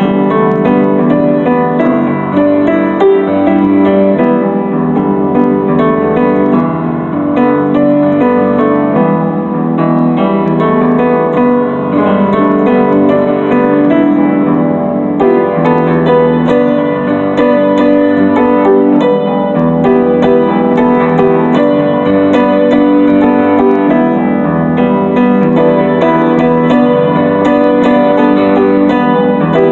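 Piano-voiced keyboard playing an instrumental passage of chords and melody, with no singing.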